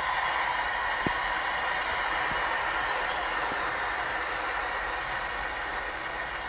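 A large stadium crowd cheering and applauding, swelling up at the start and then holding steady.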